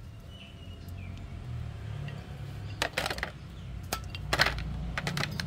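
Cooked duck bones and meat tipped from a dish into a dog's feed bowl, clattering in a run of clicks and knocks from about three seconds in, over a low rumble.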